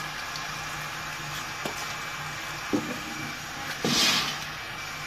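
Wet handling of cut pangasius fish pieces on a metal tray of water: light knocks and squishes, with a louder splash about four seconds in, over steady background noise.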